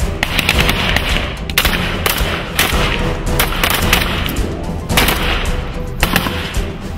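AK-pattern rifles firing: rapid, irregular shots from several shooters on a firing line, over background music.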